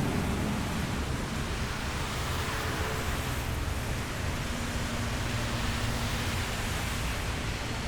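Steady road traffic noise: a continuous wash of tyre and engine noise with a low rumble, no single vehicle standing out.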